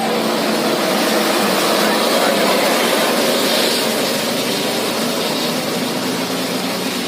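A large bus passing close by: a loud, steady rush of engine and road noise, with voices mixed in.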